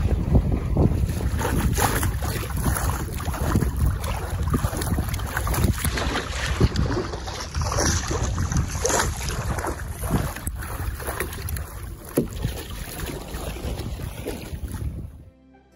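Water rushing and splashing along the hull of a Heron sailing dinghy under way in a chop, with wind buffeting the microphone. The sound cuts off suddenly near the end.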